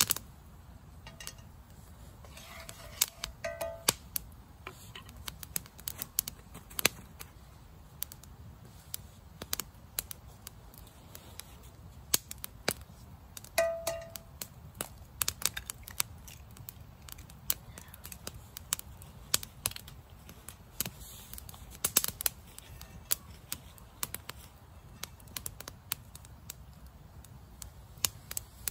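Small wood fire crackling in a wire portable fire grill, with irregular sharp snaps and pops throughout. About halfway through, a short metallic clank as a cast iron frying pan is set on the grill.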